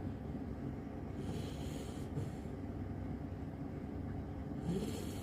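Golden retriever puppy snoring in its sleep: two slow, airy breaths about a second long each, some three and a half seconds apart, over a steady low rumble.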